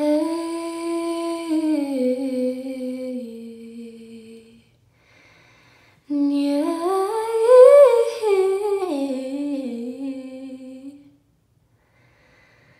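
A woman's unaccompanied voice humming a wordless melody in two long phrases: the first slides slowly downward, and after a short pause the second climbs to a high, loudest note and sinks back down.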